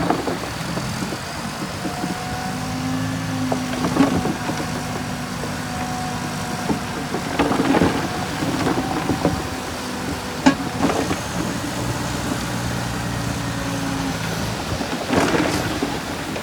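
Diesel engine of heavy earthmoving machinery running steadily, with loud clanks and bangs of metal and dirt four times, about four, eight, ten and fifteen seconds in.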